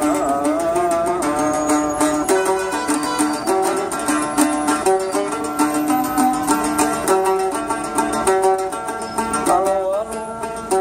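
Algerian mandole played solo, a quick plucked melody in the chaabi style with no singing.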